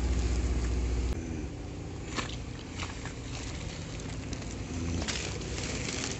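A low steady hum like a motor running in the background, with a heavier low rumble that drops away about a second in. A few light knocks and rustles, typical of a hand-held camera being moved about, come on top of it.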